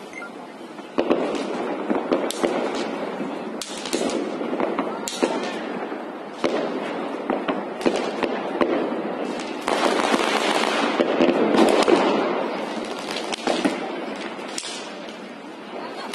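Firecrackers and fireworks going off at ground level: a string of sharp, irregular bangs and cracks, with a louder, denser stretch about ten seconds in.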